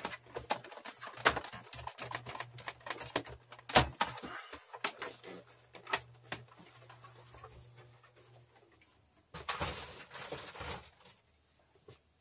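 Dell Optiplex 380 desktop computer shutting down: its steady low hum runs and then stops about nine seconds in, among scattered sharp clicks and knocks. A short stretch of rustling follows.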